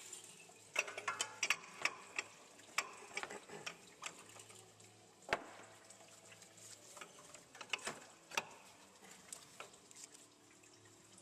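Irregular metal clicks and knocks as a Dodge Ram 5.9L diesel's water pump is unbolted by hand and worked off the engine, with one sharper knock about five seconds in.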